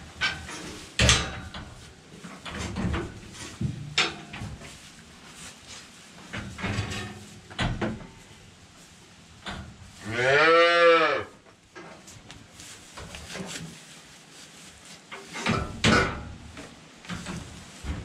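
A cow mooing once, about ten seconds in: one call of a little over a second that rises and then falls in pitch. Scattered knocks and clatter come before and after it.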